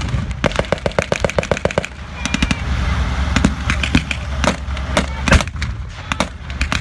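Machine gun firing blanks: a rapid burst lasting about a second and a half near the start, then scattered single shots. Under the shots runs the low, steady sound of the tank destroyer's engine.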